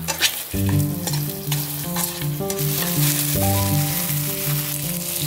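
Hot adobo sauce and chicken wings sizzling and splashing as they are poured from a wok into a bowl, a steady hiss with small knocks of the spatula. Background music with a bouncing bass line plays underneath.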